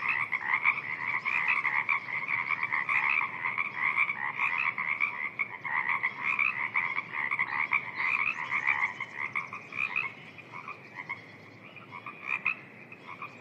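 Chorus of frogs calling in a wetland, many rapid overlapping croaks. About three-quarters of the way through the chorus thins out to scattered, quieter calls.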